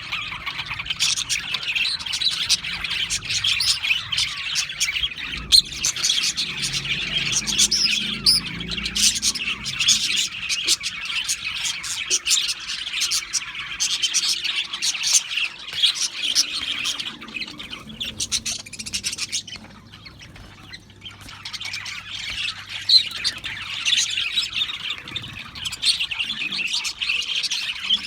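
Several budgerigars chirping continuously in dense overlapping chatter, with a brief lull about twenty seconds in.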